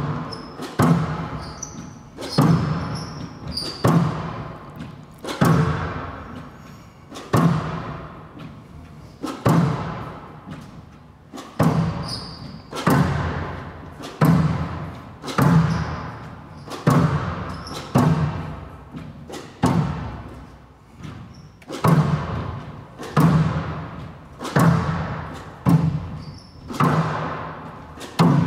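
Squash ball being driven back and forth in a rally: sharp smacks of racket on ball and ball on the front wall about every three-quarters of a second, each echoing through a large hall, with brief squeaks of shoes on the court floor.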